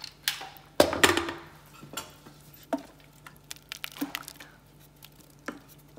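A silicone spatula stirring cooked toor dal in an Instant Pot's stainless steel inner pot: scattered knocks, taps and scrapes against the steel, the loudest clatter about a second in.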